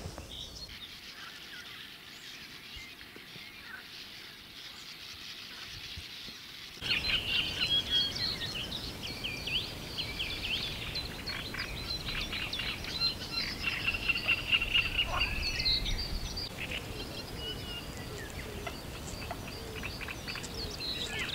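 Birds chirping and trilling over a steady outdoor hiss; the sound steps up suddenly about seven seconds in, after which the calls come thick and fast.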